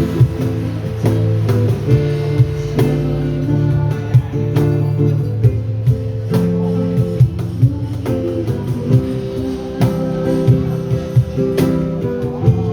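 Live band playing an instrumental passage: strummed guitar chords held over a steady drum beat.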